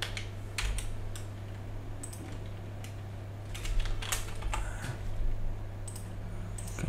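Computer keyboard typing: scattered, irregular keystrokes, over a steady low hum.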